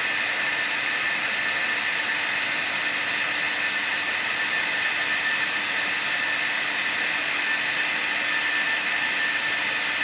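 Electric blower-type heating appliance, like a fan heater or hair dryer, running steadily as the load on a solar inverter. It makes a loud, even rush of air with a constant whine.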